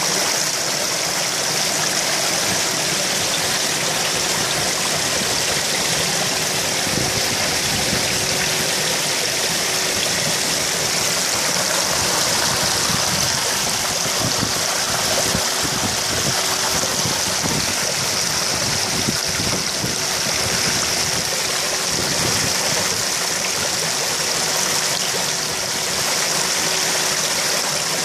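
Steady rushing, splashing water in a koi pond, with koi churning and gulping at the surface amid aerated, bubbling water. A faint steady hum runs underneath.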